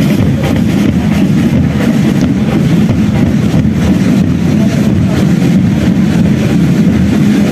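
Loud, steady low rumble of engines, without a clear rhythm or change in pitch.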